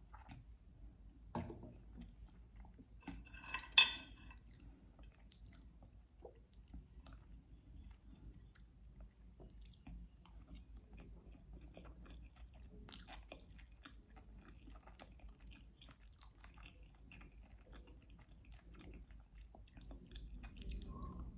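A person chewing food close to the microphone: soft, moist chewing with many small clicks and crunches. One brief, louder sound stands out about four seconds in.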